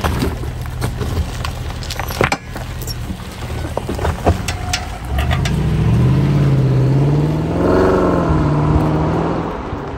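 Range Rover Sport SUV creeping over loose rock, its tyres crunching stones with scattered sharp clicks. About five seconds in, the engine note rises into louder acceleration, its pitch climbing and falling as it drives on.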